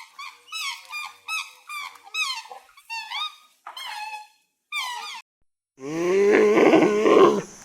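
Animal calls: a run of about nine short, high, squeaky cries, each bending down in pitch, then from about six seconds a much louder, lower, drawn-out call.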